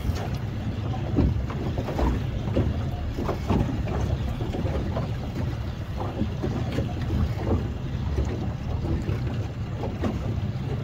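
Wind buffeting the microphone on a small boat in choppy water, a steady low rumble with irregular short slaps and knocks of water against the hull.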